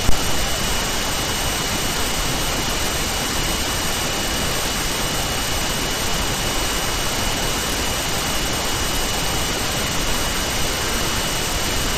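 Steady hiss of recording noise with a faint, thin high whine running through it; no ticking or other events.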